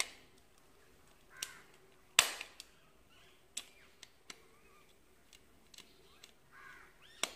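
Sharp clicks and taps of a screwdriver working the terminal screws on the back of a four-gang electrical switch plate, at irregular intervals, the loudest about two seconds in.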